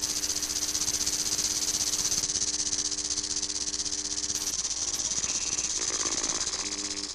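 A loud, steady hiss with a fast flutter, like an insect's buzz, with faint steady low tones underneath.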